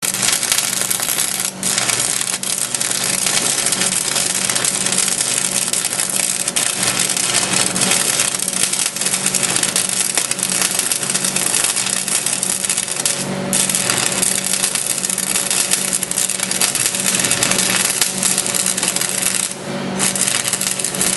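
Electric arc welding: a loud, steady crackle and sizzle of the arc with a low hum underneath, breaking off briefly twice.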